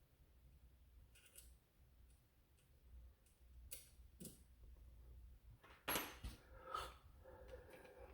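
Faint clicks and clacks of plastic foam-blaster parts being handled and fitted together, with two louder clacks about six seconds in.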